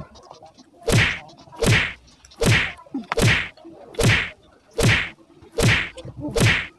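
A series of eight loud whacks, evenly spaced a little under a second apart, each with a short swishing tail.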